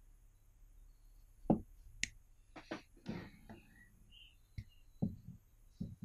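Leatherman Surge multitool being handled: scattered short metal clicks and light knocks as its folding implements are swung open, the sharpest about one and a half seconds in.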